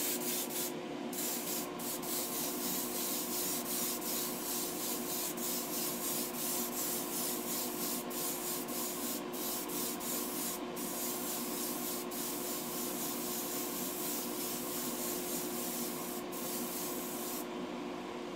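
Airbrush spraying paint, a steady hiss of air broken by a few brief pauses as the trigger is let off. Under it is the steady hum of the spray booth's extractor fan. The hiss stops near the end and the fan hum carries on.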